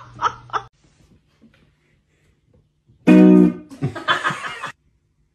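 A couple of seconds of near silence, then two short bursts of music with a plucked guitar, about three and four seconds in.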